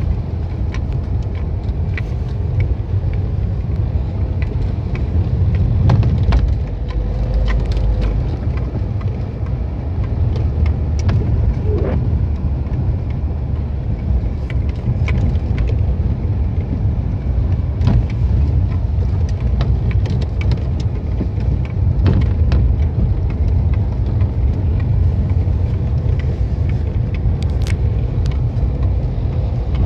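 Steady low rumble of a car driving along a snow- and slush-covered road, heard from inside the cabin, with scattered light clicks and knocks.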